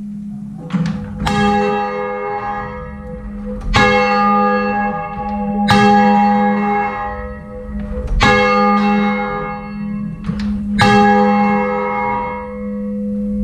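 A ring of six church bells, tenor about 9 cwt in A♭, rung full-circle and heard close up in the bell chamber. The nearest bell strikes loudly every two to three seconds and each stroke rings on, with fainter strikes from the other bells between and a low rumble underneath.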